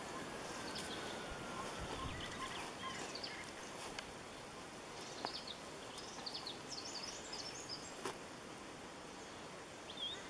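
Outdoor ambience: a steady background hiss with small birds giving short, high chirps and twitters throughout, in a busier cluster a little past halfway. A few sharp clicks stand out.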